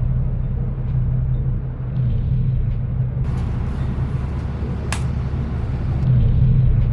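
Motor yacht's inboard engines idling with a steady low rumble. A hiss rises over it for a few seconds midway, with one sharp click.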